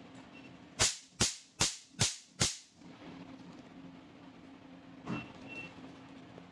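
Picosecond laser handpiece firing five pulses into a black test card, each one a sharp snap as the pulse blasts a spot off the card's surface, at about two shots a second.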